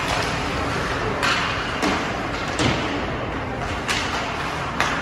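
Sounds of ice hockey play in an indoor rink: five or six sharp clacks and scrapes of sticks, puck and skates on the ice, spaced about a second apart. They ring out over the steady hiss of the hall.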